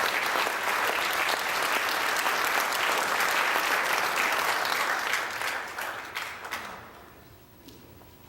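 Congregation applauding, strong and steady, then dying away over the last couple of seconds.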